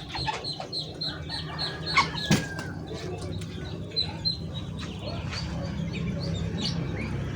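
Caged songbirds in an aviary chirping in quick repeated high notes, with wings fluttering and two sharp knocks about two seconds in, over a steady low hum.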